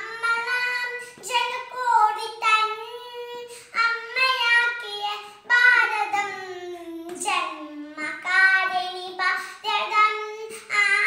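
A young girl singing solo without accompaniment, holding long notes that glide up and down in pitch.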